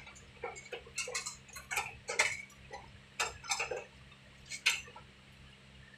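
Irregular sharp metal clicks and clinks of a hand tool working the service valves of a split air-conditioner's outdoor unit during a pump-down, over a low steady hum.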